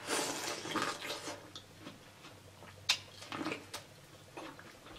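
Biting kernels off a sauce-coated ear of boiled corn on the cob: wet crunching for the first second or so, then softer chewing and mouth smacks with a sharp click about three seconds in.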